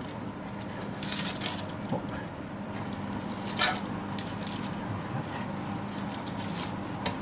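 A metal fork and spoon clink and scrape against a wire oven rack and crinkle the foil beneath it while sauced pork ribs are turned over. There are a handful of light, scattered clicks, the loudest about halfway through, over a low steady hum.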